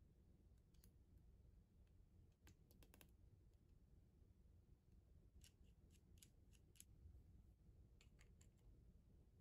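Faint clicking of small hard plastic parts being handled and pressed together, in a few short clusters of clicks.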